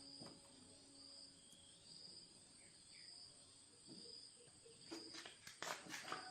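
Faint, evenly repeated high chirps, a little more than one a second, like an insect calling, over near silence. A few light clicks and knocks come near the end.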